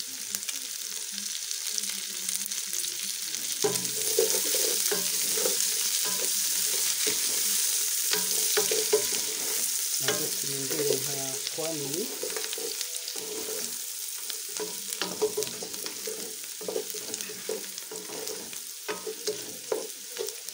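Beef, onions, green pepper and celery sizzling as they fry in an aluminium pot, stirred with a wooden spoon that scrapes and knocks against the pot many times.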